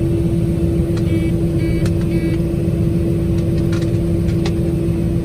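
Combine harvester running steadily during corn harvest, a constant machine drone with a steady hum. Three short electronic beeps sound about a second in, and a few faint clicks follow later.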